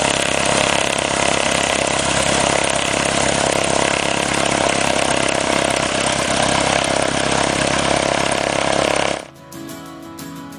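Cessna 172SP's four-cylinder Lycoming IO-360 engine and propeller running, a loud steady drone with a rough buzzing edge that cuts off abruptly about nine seconds in, when guitar music comes back.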